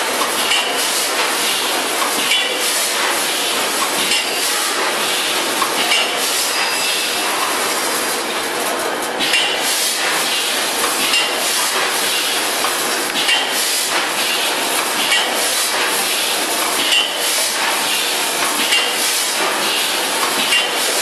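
VFS5000FS vertical form-fill-seal granule packaging machine running, with a metallic clink about once a second over a steady mechanical hiss.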